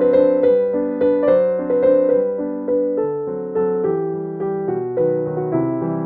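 Background piano music: a gentle melody of plucked-sounding keyboard notes over a steady accompaniment.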